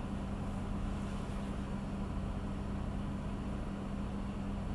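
A steady low mechanical hum at one constant pitch, like a running appliance or motor in the room; nothing else stands out.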